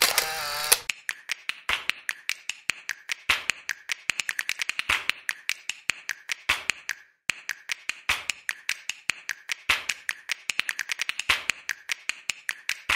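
A rapid, uneven run of sharp clicks, several a second, with a short pause about seven seconds in.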